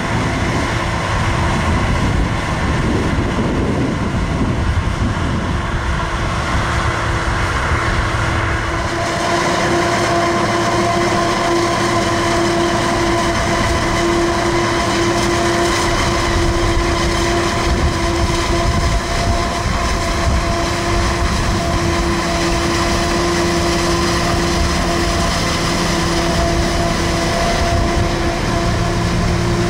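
Forage harvester chopping maize: a steady heavy engine and machine drone with a steady whine held on top. About nine seconds in the deep rumble falls away and the higher whine comes to the fore.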